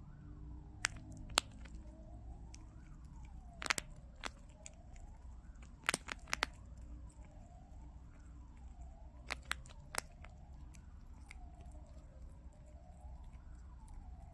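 Prairie dog crunching a hard biscuit treat: sharp crunchy bites in clusters, the loudest about four and six seconds in, none after about ten seconds. Behind it a faint siren-like wail falls and rises over and over, about every second and a half.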